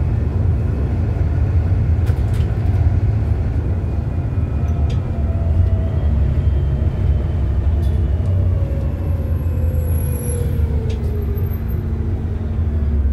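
Volvo B7TL bus's 7.3-litre D7C diesel and drivetrain heard from inside the cabin: a steady low rumble with a whine that falls in pitch over several seconds past the middle as the bus slows with a stop requested. A few light rattles come from the body.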